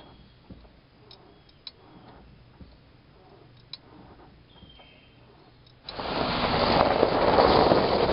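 A few faint ticks, then about six seconds in a sudden loud rush of noise: a pickup truck's tyres rolling over gravel.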